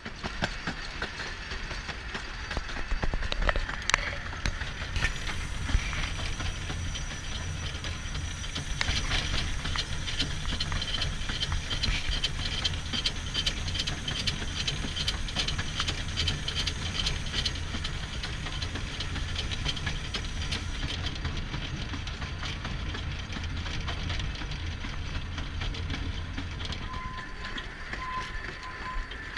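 Miniature steam locomotive running along its track: a steady low rumble of wheels and motion, with a fast even rhythm of clicks through the middle. There are a couple of sharp knocks about four and five seconds in.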